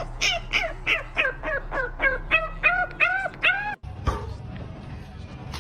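An animal calling in a quick series of short cries that rise and fall in pitch, about three a second, stopping after nearly four seconds; a low noisy rumble follows.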